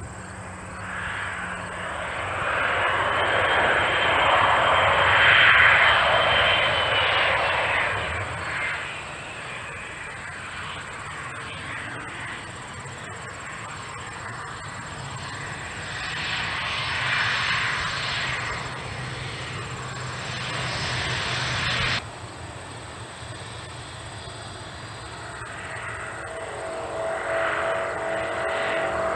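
Twin turbofan engines of a Bombardier CRJ-200 regional jet on its landing rollout: a rushing jet noise that swells to its loudest about five seconds in, with a high whine that drops in pitch as it fades, then swells again. It cuts off suddenly about 22 seconds in, and the jet is then heard taxiing with a lower, steady engine whine.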